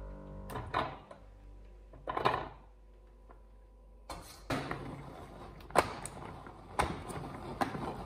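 Steamed vegetables dropped twice from a slotted spoon into the plastic bowl of a manual pull-cord food chopper. From about four seconds in, the chopper's cord is pulled again and again to spin its blades through the vegetables: a steady noise with a sharp click about once a second.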